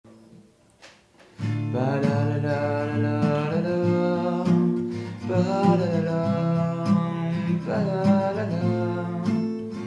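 Acoustic guitar played from about a second and a half in, with a man's voice singing a slow, drawn-out melody over it.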